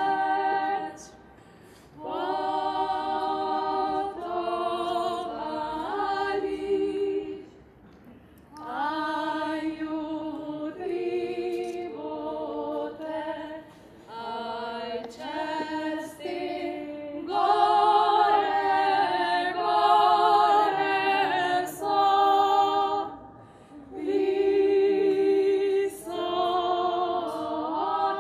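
A small group of women singing a traditional folk song a cappella, apparently in two-part harmony, in phrases broken by short breathing pauses.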